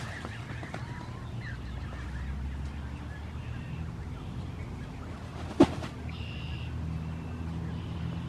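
Faint, short high peeps, typical of Canada goose goslings, over a steady low rumble, with one sharp click a little over halfway through.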